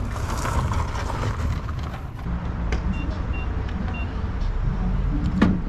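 Outdoor vehicle noise: wind and rumble for about two seconds, then a steady low rumble at a fuel pump. Three short electronic beeps come from the pump's keypad about three to four seconds in, and a single sharp knock sounds near the end.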